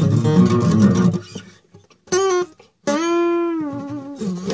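Guitar playing: a strummed chord, then after a short pause a brief note and a long held note that bends slightly in pitch as it fades.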